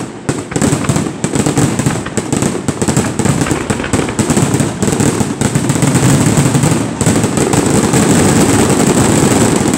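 Fireworks display: many aerial shells bursting in quick succession, with dense, continuous bangs and crackling that grow louder about six seconds in.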